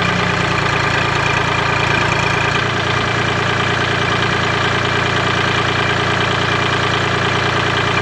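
Compact tractor's diesel engine idling steadily, with a knocking clatter.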